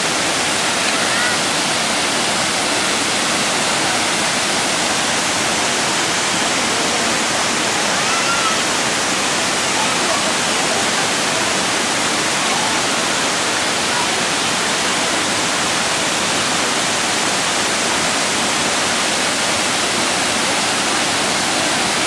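Thi Lo Su waterfall's large volume of water falling and crashing, a loud, steady, unbroken rush.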